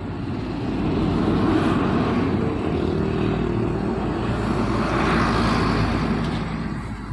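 A motor vehicle's engine drones as it passes close by, swelling over about the first second, holding steady, then fading away near the end.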